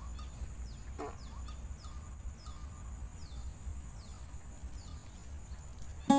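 A bird repeating short, high chirps that slide downward, about once or twice a second, over a steady high insect drone. Guitar music comes in abruptly at the very end.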